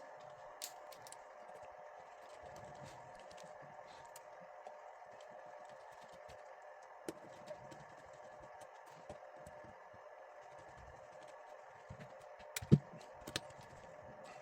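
Sparse small clicks and taps of hard plastic parts being handled, with a couple of sharper knocks near the end, over a faint steady hum.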